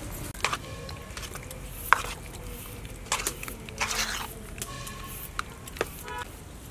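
Metal spoon clinking and scraping in a stainless-steel mixing bowl as battered pieces are stirred: scattered irregular clinks, a few of them ringing briefly.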